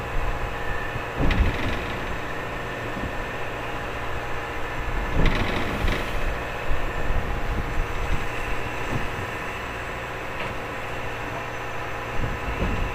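Fishing boat's engine running with a steady drone, with a few knocks on deck about a second in and again around five to six seconds in.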